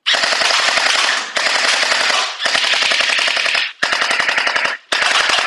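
ARONCLUB Glock 17-style electric gel ball blaster firing full-auto: five bursts of about a second each, rapid rattles of shots with short breaks between them. It is shooting strong and fast.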